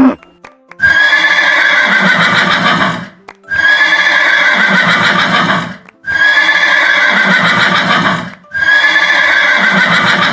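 A horse neighing four times, the same whinny repeated, each about two seconds long with a slightly falling pitch and a short pause between calls.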